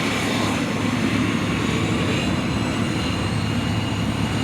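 Cessna CitationJet CJ1's twin turbofan engines running steadily: a constant jet whine with high thin tones over a low rumble.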